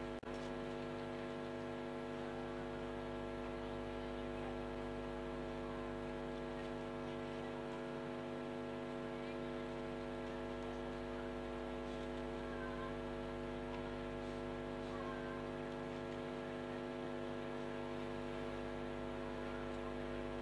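Steady electrical mains hum: a constant buzz with many evenly spaced overtones and nothing else above it.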